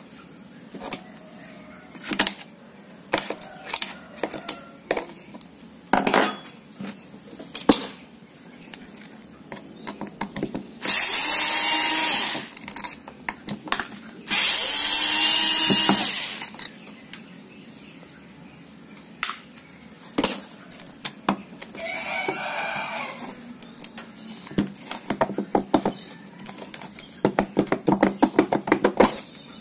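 Clicks, knocks and rattles of tools on the plastic housing of an electric hand blower as it is taken apart to remove its burnt stator. Two loud, steady bursts of about a second and a half each come near the middle, and a fast run of ticks near the end.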